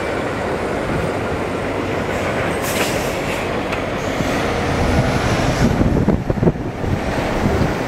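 Storm wind blowing hard across the microphone, a steady low rumble that gusts stronger around five to seven seconds in.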